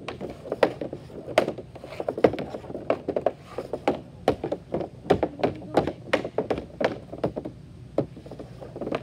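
Hockey stick blade and puck clacking on a shooting pad as a puck is stickhandled: a fast, irregular run of sharp clacks and taps, several a second.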